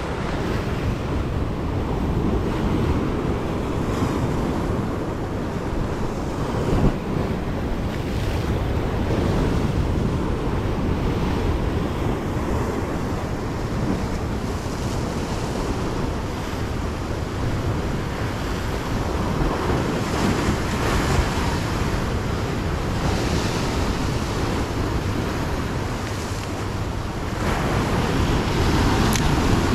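Sea waves surging and washing against a rocky shore, with wind buffeting the microphone. The surf grows louder near the end.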